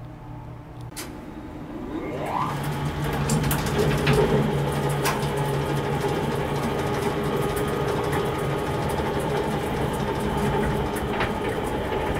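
1950s Sedgwick electric book lift, a library dumbwaiter, starting up with a rising whine about two seconds in, then its motor running steadily with a hum as the car travels up the shaft. Scattered clicks and knocks sound over the hum.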